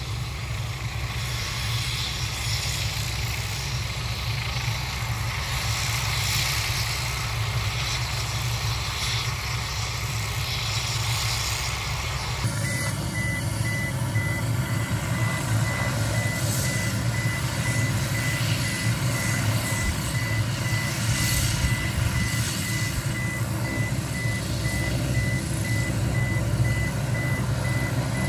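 Low engine rumble of heavy machinery. From about halfway through, a vehicle's reversing alarm beeps steadily and keeps going.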